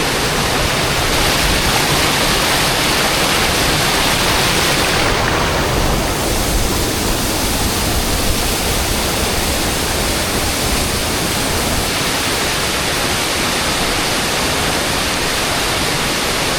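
A waterfall pouring down, giving a loud, steady rush of water. About five or six seconds in, the top of the rush dulls slightly, then it carries on unchanged.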